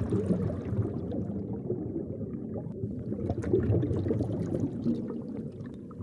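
Low, steady underwater rumble of moving water.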